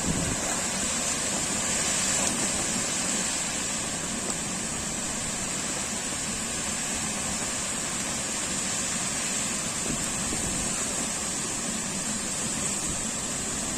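Heavy rain from a summer storm pouring down steadily in a dense, even hiss, with wind.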